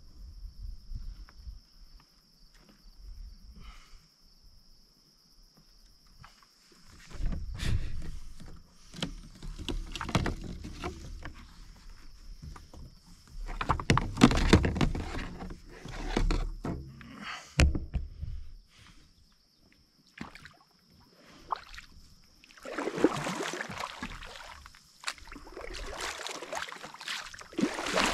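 Stand-up paddleboard moving through shallow water, with water sloshing and scattered knocks against the board. Near the end, reeds brush and scrape along the board and rod as it pushes into a reed channel.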